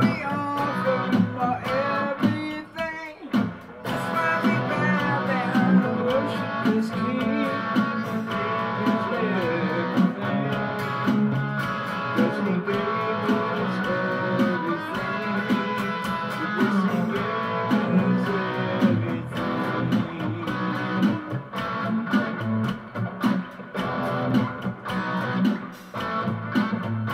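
Electric guitar played solo, a continuous run of chords and melodic lines with bent notes and a short break about three and a half seconds in.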